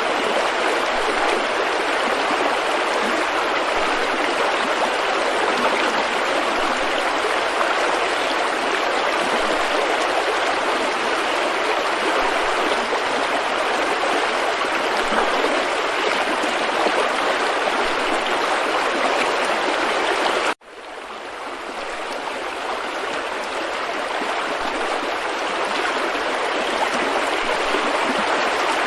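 River rapids rushing steadily, a dense even roar of white water. About twenty seconds in, the sound cuts out for an instant and fades back up over a few seconds, an edit join in the recording.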